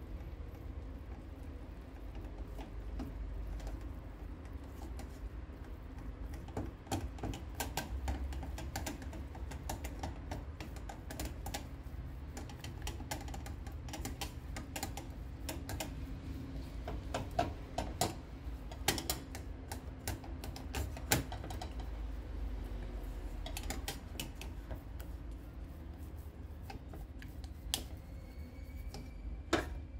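Irregular light clicks and knocks of a utensil working against cookware during choux pastry making, over a steady low hum. The clicks come thicker and louder around the middle.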